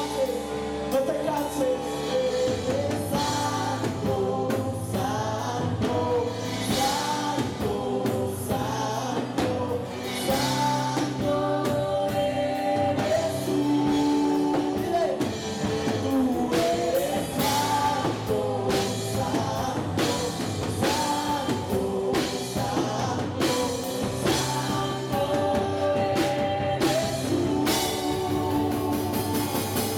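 Live worship band playing and singing in Spanish: a woman and a man singing into microphones over electric guitars and keyboard, with a steady beat.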